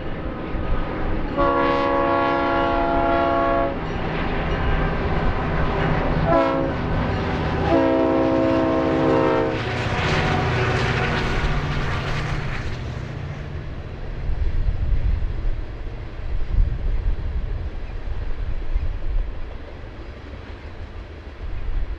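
Coal train's diesel locomotive sounding its multi-tone air horn: one long blast, one short, then another long, over the engine's rumble. A loud rush comes about ten seconds in as it passes, followed by the rumble of rail cars rolling by.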